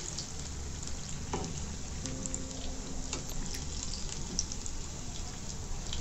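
Hot oil sizzling and crackling steadily around pakoras deep-frying in a kadhai, with a few light clicks as a knife turns them in the oil.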